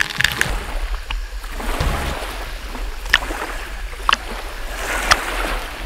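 Water sloshing and splashing right against a camera held at the waterline of a waterfall pool, with a low rumble of moving water. Sharp splashes stand out about a second in and again around three, four and five seconds.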